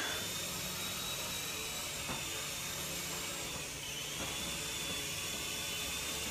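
Small remote-control toy helicopter in flight: its electric motor and rotors give a steady high whine that dips slightly in pitch about four seconds in and comes back up.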